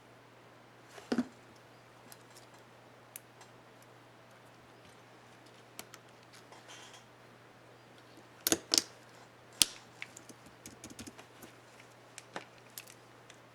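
Plastic clicks and snaps from a keycap on an HP dm4 laptop keyboard being fitted and pressed. There is a loud snap about a second in, a few sharp clicks just past the middle, then a quick run of lighter clicks.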